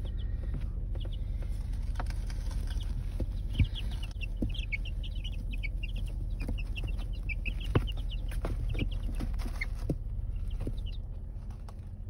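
Two-week-old chicks peeping in their box: short high peeps, a busy flurry of them in the middle and a few scattered ones elsewhere, over a steady low rumble. Two sharp knocks, about three and a half seconds in and again near eight seconds.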